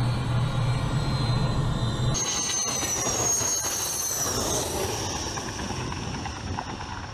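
Su-25 attack jet's turbojet engines: a steady drone heard from inside the cockpit, then, after a cut about two seconds in, the high whine and rush of the jet rolling down the runway. The whine falls slightly and the sound fades toward the end.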